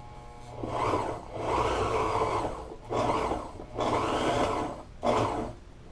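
Sewing machine stitching vinyl upholstery in short runs: five bursts of a second or so, with brief stops between them, over a steady low motor hum.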